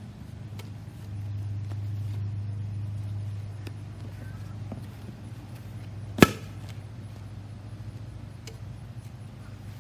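One sharp pop about six seconds in as a foot stomps on the air pedal of a toy stomp rocket launcher and the bubble rocket shoots up. A steady low hum runs underneath.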